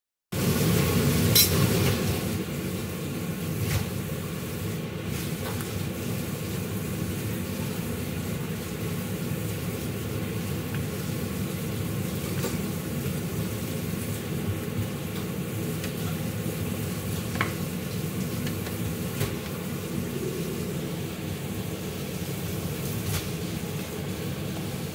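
A steady low hum of kitchen background noise. A few light, sharp taps and knocks come from hands, dough and utensils on the marble rolling board, the clearest about a second and a half in.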